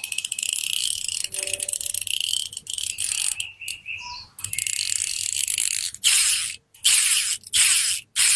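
Ratchet arm of a metal fidget spinner: spring-loaded 3 mm zirconia balls click against the spinning rotor in a fast run of crisp, high clicks. From about six seconds in, the clicking comes in short bursts with brief gaps between them.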